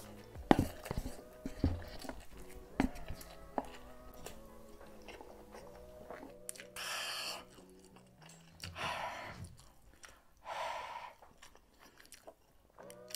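Close-miked eating of spicy Samyang Buldak instant noodles: wet slurping, smacking and chewing clicks in the first few seconds. In the second half come three loud, noisy, breath-like hisses, each about a second long, while he keeps chewing.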